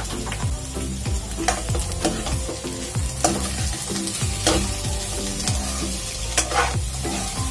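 White nylon spatula stirring and scraping watermelon-rind sabzi around a non-stick kadai, with a light sizzle from the frying; the scrapes come again and again as the pieces are turned.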